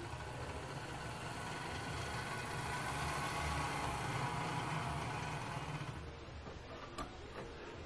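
Brass S-scale GE 44-ton diesel model locomotive running on DC: a steady whir of its motor and gearing with the wheels rolling on the rails, swelling in the middle and dropping off about six seconds in as it moves away. A single sharp click about seven seconds in.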